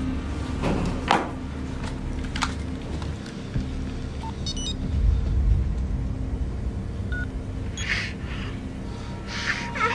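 Low steady rumble with a faint held tone, broken by a few soft knocks, then a brief cluster of short electronic beeps about four and a half seconds in from a mobile phone being operated.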